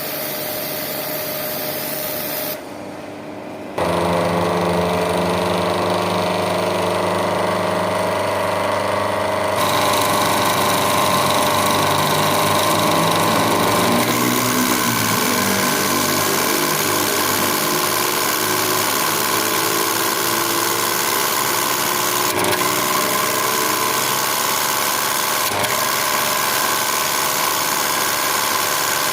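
Water jet pressure washer running steadily at work, its motor droning under load. The sound dips briefly about three seconds in and wavers in pitch around the middle.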